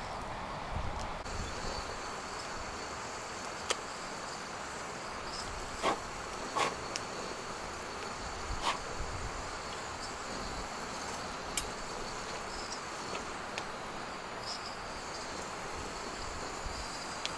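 A steady hiss with a faint, unbroken high-pitched tone like insects over it, and a handful of short sharp pops spread through, the loudest two about six and nine seconds in.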